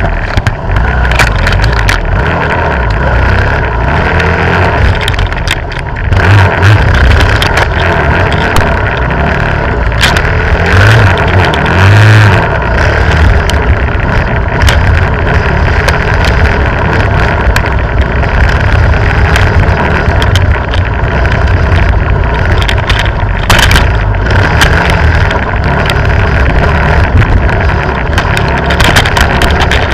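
Dirt bike engine running as the bike rides a rough, overgrown trail, heard from a camera on the front fork, with scattered knocks as brush strikes the camera.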